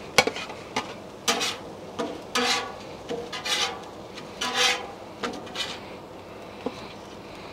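A metal spatula scraping across the flat steel top of a Blackstone griddle in about ten short strokes, sliding under tortillas to lift them off.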